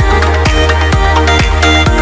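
Background electronic dance music with a steady beat, about four strokes a second, over a sustained bass.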